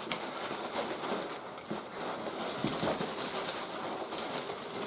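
Irregular rustling and crinkling of a mailed package being opened by hand, with scattered small clicks and taps.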